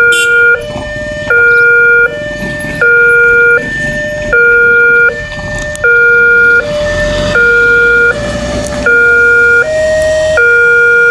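Railway level-crossing warning siren sounding a two-tone hi-lo alarm. It switches between its two tones about every three-quarters of a second, one tone louder than the other, signalling that a train is approaching. The uploader calls this crossing's siren unusual and faulty.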